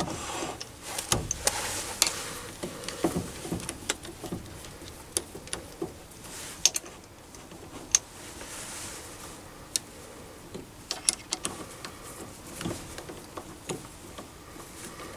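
Irregular light metal clicks, taps and knocks from handling a Jacobs drill chuck on a lathe tailstock centre and tightening it with a chuck key.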